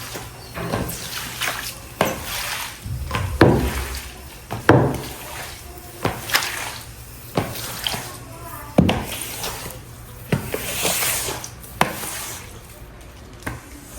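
Water running at a sink, with repeated knocks and clatters of items being handled and washed.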